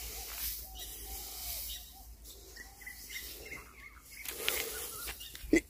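Faint rustling of a cloth sack and dry wheat straw being handled, with a bird chirping several short calls in a row about halfway through. A short, sharper sound comes just before the end.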